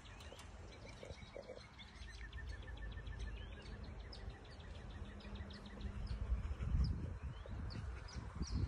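Outdoor ambience of birds chirping and calling, including a short descending run of notes, over a low rumble that swells into stronger irregular bursts near the end.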